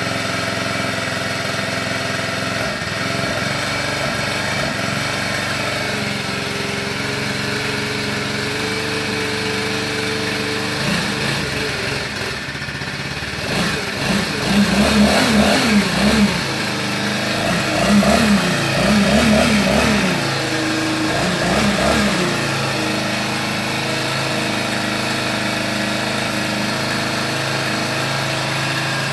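Small four-stroke petrol engine of a new ALDI leaf blower running on its first run-in, mostly idling steadily. About halfway through its speed rises and falls several times in short bursts, then it settles back to a steady idle.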